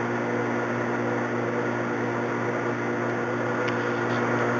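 Metal lathe's electric motor running with a steady hum.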